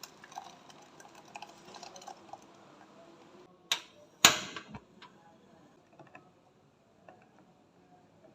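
Small clicks and taps of things being handled, with two sharp knocks about half a second apart a little before the middle, the second the loudest.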